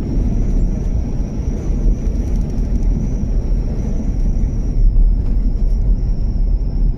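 Land Rover Discovery driving slowly along a rough, wet single-track road, heard from inside the cabin: a steady low rumble of tyres and engine, with a faint steady high-pitched tone above it.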